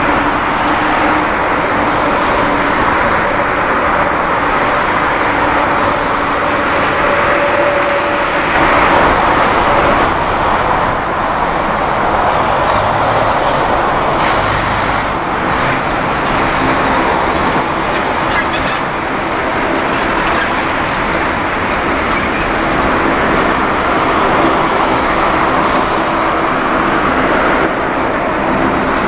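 The four Rolls-Royce Trent 970 turbofans of an Airbus A380-841 running at taxi power: a steady jet rush and whine with a faint hum, swelling slightly about nine seconds in.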